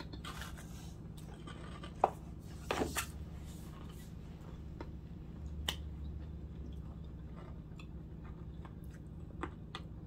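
Quiet chewing of a Cadbury Crunchie, a milk chocolate bar with a honeycomb centre, with a few scattered crunches and mouth clicks, the loudest around two to three seconds in.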